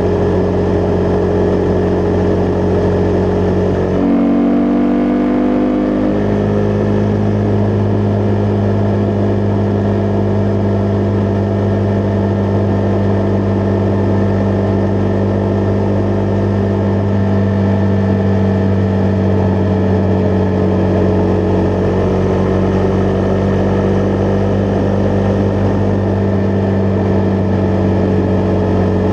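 Husqvarna Vitpilen 401's single-cylinder engine under way at a steady cruise. About four seconds in, its pitch jumps up and climbs for a couple of seconds, then settles back into a steady note.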